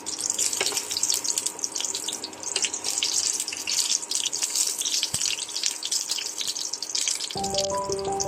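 Water running from a kitchen tap and splashing into a sink. Soft background music comes in near the end.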